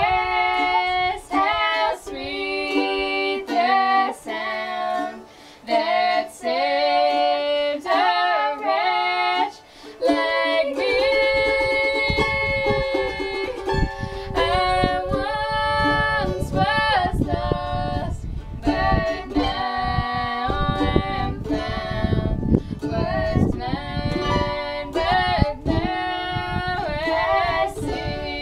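Two female voices singing a folk song together, with a mandolin strummed underneath. For the first third the voices carry it almost alone; then steady, fast strumming comes in and runs under the singing.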